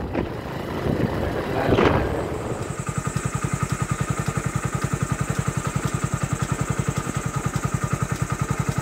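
Motorcycle engine idling steadily at about ten even beats a second, after about two seconds of uneven road and engine noise.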